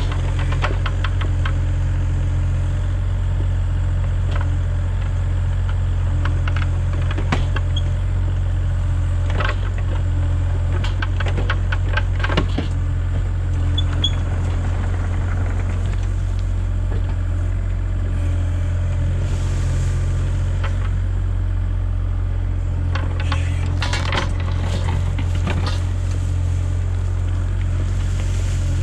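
Kubota mini excavator's diesel engine running steadily while it digs, with scattered clicks and knocks from the bucket scraping through soil and stones.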